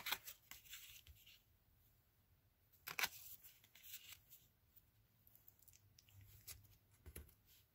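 Tarot cards handled by hand: a card lifted off the pile and set aside, giving a few faint snaps and light taps of card on card, the clearest about three seconds in, amid near silence.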